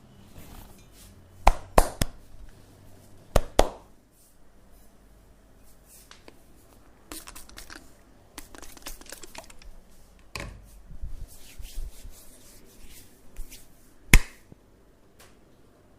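Hands working during a head and neck massage: several sharp cracks or slaps in the first few seconds and one louder one late on, with rubbing, scratching and light tapping in between.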